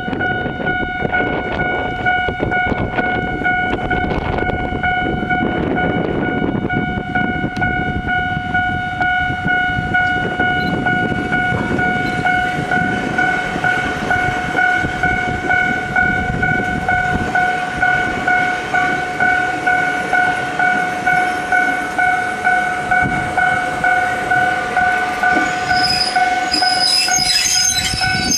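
Japanese level-crossing alarm ringing steadily as an Ichibata Electric Railway 3000 series electric train runs past with a rumble of wheels and motors. In the second half the ringing pulses at about one and a half beats a second, and near the end there are high-pitched wheel squeals and clicks.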